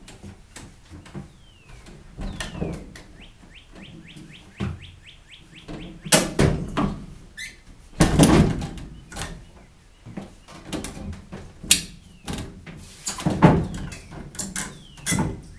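Irregular knocks and clatters of hand work on the rack, the loudest a few heavy clunks in the second half, while a bird repeats short down-slurred whistled notes, once in a quick run of about ten.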